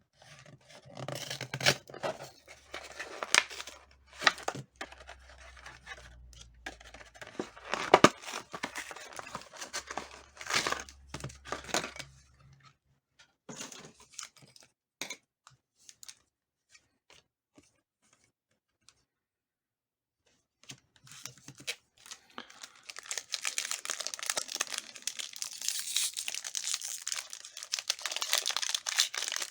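Pokémon card packaging being torn open and handled: a blister pack and foil booster wrappers tearing and crackling in irregular bursts for the first dozen seconds, a few seconds of near quiet, then steady crinkling through the last eight seconds.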